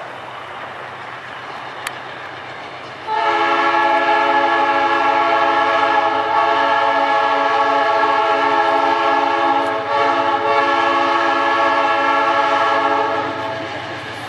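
Air horn of an approaching diesel locomotive sounding one long multi-tone blast of about ten seconds, with a brief break near the end. It rises over the locomotive's steady low running.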